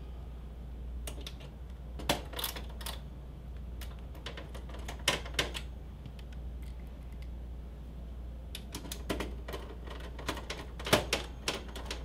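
Irregular metallic clicks and taps of a screwdriver and screws as the graphics card's retaining screws are put back into the PC case's expansion-slot bracket, coming in scattered clusters and thickest near the end.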